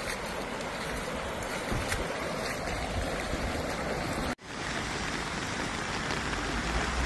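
Steady rushing noise of floodwater and rain, cut off abruptly about four seconds in and followed by a similar steady water-and-rain noise.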